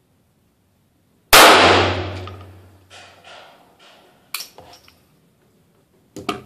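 A single .22 LR shot from a Heckler & Koch HK4 pistol, ringing out and dying away over about a second and a half. It is followed by a few sharp metallic clicks as the pistol is handled and set down on the table.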